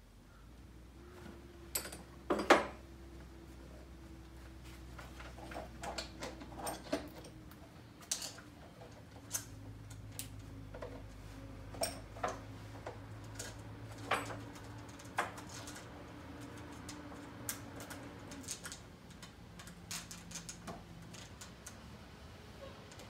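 Scattered small metallic clicks and clinks of a chainsaw chain and its tensioner being worked by hand as a new chain is fitted onto a Husqvarna 350's bar. The sharpest clack comes about two and a half seconds in, over a faint steady hum.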